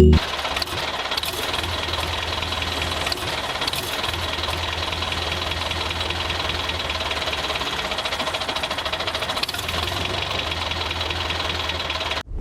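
A motor or engine running steadily with a fast, even knock, cutting off abruptly near the end.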